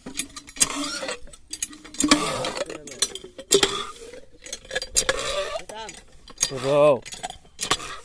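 Indistinct human voices with scattered clattering and scraping noises; a voice is loudest near the end.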